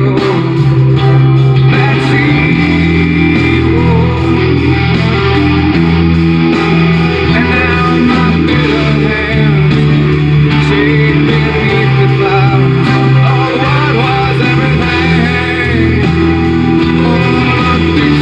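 Rock song with guitar and bass guitar and a singing voice, playing loud and steady.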